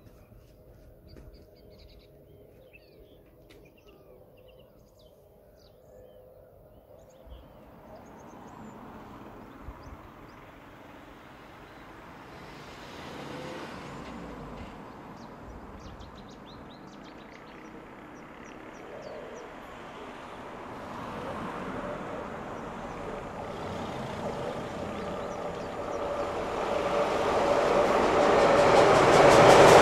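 Steam locomotive Duchess of Sutherland, an LMS Princess Coronation Class 4-6-2, approaching at speed with its train, its noise growing steadily louder from a few seconds in until it is close at the end. Birds chirp faintly at the start.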